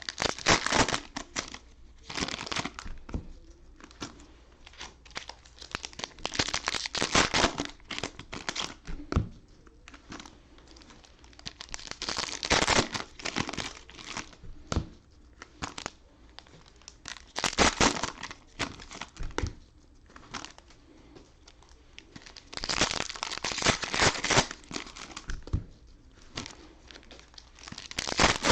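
Cellophane wrappers of Panini Mosaic football card cello packs being torn open and crinkled by hand, in repeated bursts of crinkling a few seconds apart, with quieter rustling of wrappers and cards in between.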